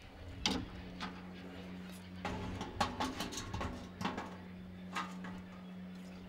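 Scattered clinks and knocks of a metal bucket being handled and set under an outdoor water tap, busiest a little past the middle, over a steady low hum.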